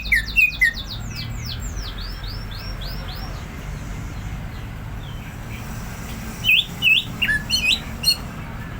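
Cucak ijo (green leafbird) singing: a quick run of sharp, down-slurred whistled notes, then a softer series of arched notes about two seconds in. After a pause, loud chirping notes come back near the end, over a steady low hum.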